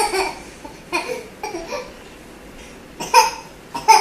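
A toddler's voice in short babbling bursts, about half a dozen, with a louder pair near the end.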